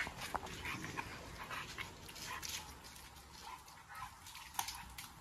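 Dogs scuffling about on concrete as they jump up for a slice of raw beef held overhead: faint scattered clicks and scrapes, with one sharper click about four and a half seconds in.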